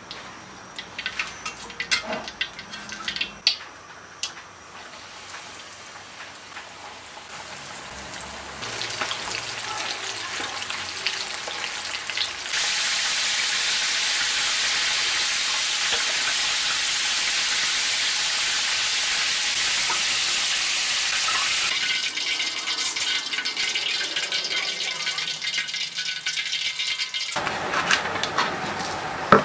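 Battered chicken pieces deep-frying in a wok of hot oil: a loud, steady sizzle that builds up over several seconds, with scattered clicks before it. It breaks off sharply near the end, followed by a single sharp knock.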